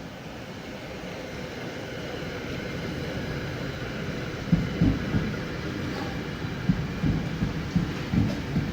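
Metro-North train with an SC42-DM diesel locomotive approaching, a rumble that grows steadily louder, with a run of low thumps from about halfway in.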